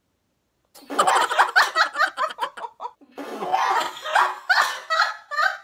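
A woman and a small girl laughing loudly in quick repeated bursts, starting about a second in.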